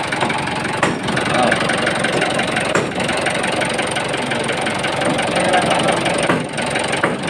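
Mitsubishi 4D34T four-cylinder turbo-diesel engine running with a knock, which the mechanic suspects comes from a connecting rod bearing.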